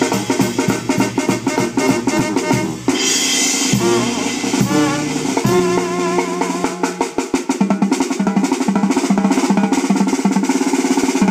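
Music with a fast drum beat and drum rolls; a wavering melody line comes in around the middle.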